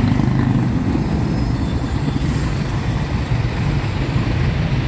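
Busy street traffic: motorcycle-sidecar tricycles and cars running past, a steady low din of engines.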